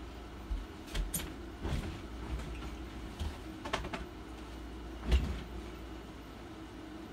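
A handful of short clicks and knocks, the loudest about five seconds in, over a steady low hum.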